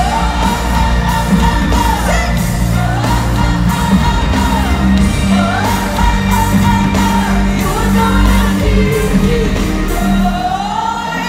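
Live pop concert music with a steady beat: a band with drums, bass and keyboards plays while a female pop singer sings a wavering melody, heard from the audience in a large arena.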